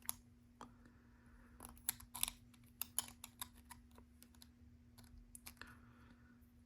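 Small plastic LEGO pieces clicking as they are handled and pressed together, in scattered clusters of sharp clicks, over a faint steady hum.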